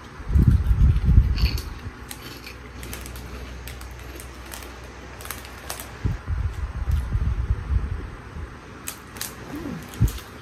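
Crinkling and rustling of a plastic snack bag handled close up, in irregular bursts with scattered sharp crackles, along with chewing of a gummy fruit jelly.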